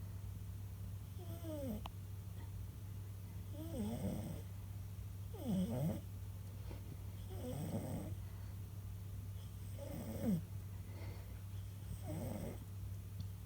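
A cat snoring, one snore about every two seconds, each sliding down in pitch. A steady low hum runs underneath.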